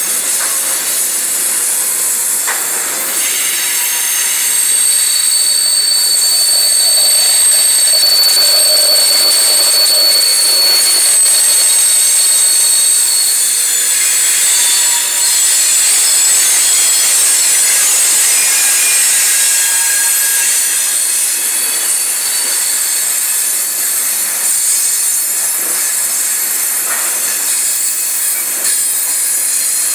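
Loaded coal hopper cars rolling past, their steel wheels screeching against the rails: high-pitched squeals that come and go over a steady loud hiss of the passing train. The screech is loud enough to hurt the ears.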